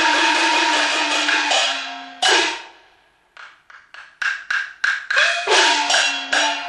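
Chinese opera percussion accompaniment. A dense crash of gongs and cymbals breaks off about two seconds in after one last gong stroke. From about three and a half seconds in, sharp wooden clapper beats come faster and faster and lead into fresh gong strokes whose pitch bends as they ring.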